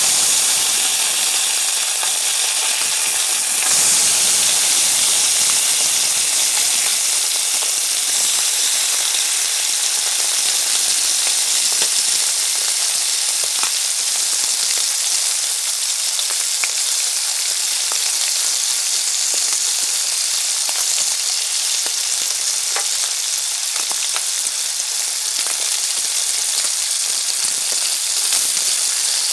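Bacon frying in a frying pan: a steady high sizzle with scattered small pops and crackles of spitting fat.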